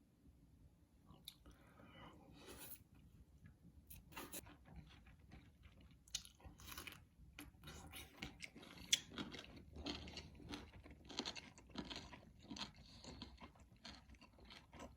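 A person eating a meal up close to the microphone: chewing and biting with irregular soft crunches and mouth clicks, busier in the second half.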